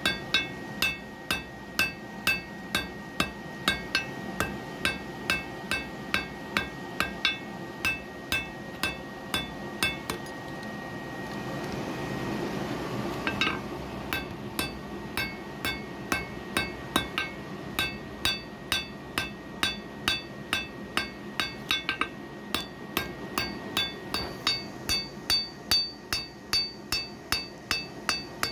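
Hand hammer beating red-hot laminated iron on an anvil, about two blows a second, each with a bright metallic ring. The hammering pauses for a few seconds near the middle while a low rushing noise swells, then picks up again.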